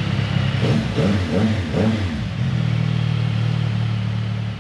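CFMoto 675 SR-R motorcycle's 675 cc inline-three engine running, blipped three times in quick succession about a second in, then settling back to a steady note.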